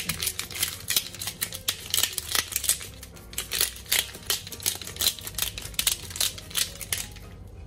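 Pepper mill grinding black pepper: a steady run of dry, crunchy clicks, about three or four a second.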